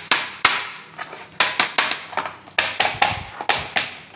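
Upturned plastic ice cube tray tapped against a plastic tray to knock set chocolates out of its moulds: a dozen or so sharp, irregular clacks.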